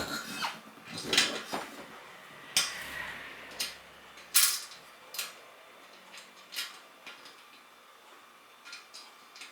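Metal hand tools clinking and knocking against a motorcycle wheel rim during a manual tyre change: a string of irregular sharp clanks, the loudest about halfway through, thinning out to a few faint clicks near the end.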